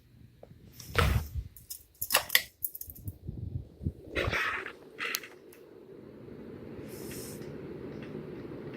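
Several clicks and knocks, then a 52-inch ceiling fan starting up, its steady whir growing gradually louder over the last few seconds.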